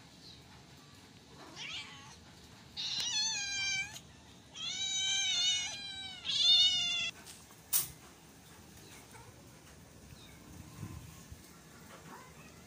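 Domestic cat meowing: three loud, high, drawn-out meows close together, the middle one the longest, after a fainter one, then a single sharp click.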